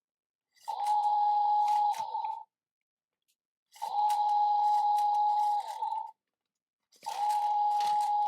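Battery-powered toy power tool playing its electronic whirring sound effect three times, each a steady high whine with clicking that drops in pitch as it stops.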